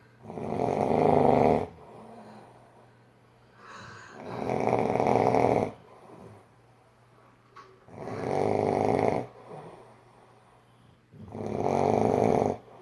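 A person asleep, snoring very loudly: four long snores, each a second or two, coming about every three and a half seconds, with quiet breathing gaps between them.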